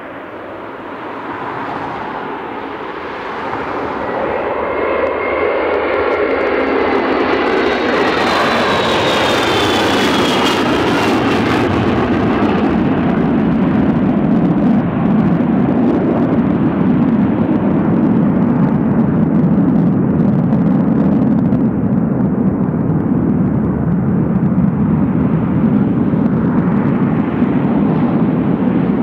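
The four Pratt & Whitney TF33 turbofans of a Boeing E-3B Sentry at full takeoff power, loud, growing louder over the first few seconds as the heavy aircraft rolls past and lifts off. A high whine falls in pitch as it goes by, then gives way to a steady deep rumble as it climbs away.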